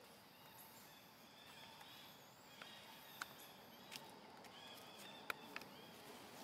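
Near silence: faint outdoor background hiss with faint high chirps and a few sharp, isolated clicks from about three seconds in.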